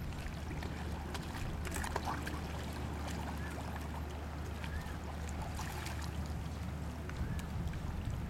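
Shallow seawater splashing and lapping as large stingrays churn the surface around a person's legs, with small irregular splashes over a steady low rumble.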